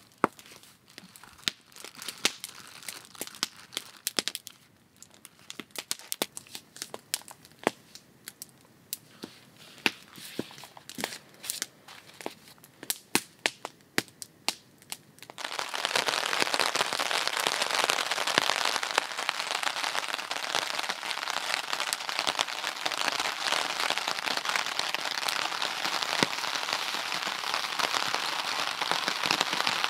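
A wood campfire crackling with sharp pops, with some packaging crinkling. About halfway through it gives way suddenly to steady rain falling on the forest floor.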